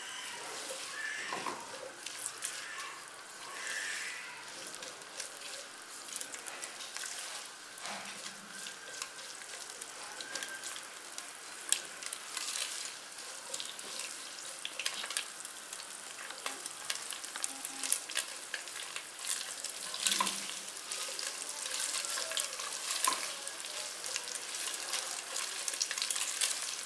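Boiled, shredded chicken sizzling as it fries in a little oil in a nonstick pan, stirred with a silicone spatula that adds frequent light clicks and scrapes over the steady hiss.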